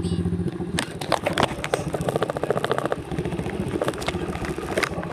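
Small 75cc single-cylinder dirt bike engine running. About half a second in, its steady drone gives way to a rapid, uneven pulsing.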